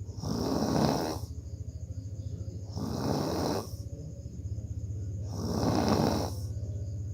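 A sleeping person snoring heavily: a continuous low, fast-fluttering drone, with three noisy breath rushes about three seconds apart.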